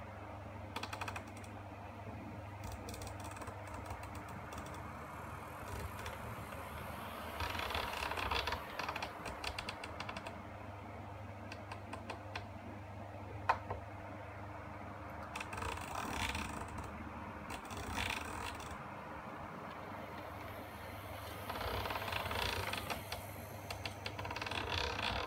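Model SBB Bm 4/4 diesel locomotive running along a model railway track: a steady low hum under bursts of rapid clicking and rattling from its wheels and drive, with one sharp click about halfway through. The clicking is loudest near the end as the locomotive comes back toward the microphone.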